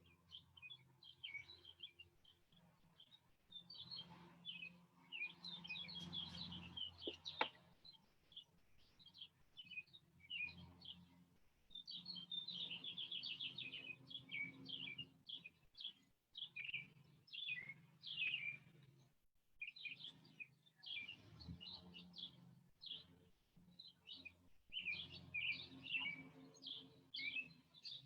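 Small birds chirping and twittering continuously, with a fast trill of notes about twelve seconds in. A faint low hum runs underneath, and there is a single sharp click about seven seconds in.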